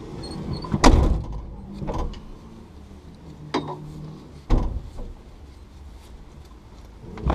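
A few sharp knocks and clunks inside a stationary rally car's cabin, four of them spread over several seconds, over a low background rumble.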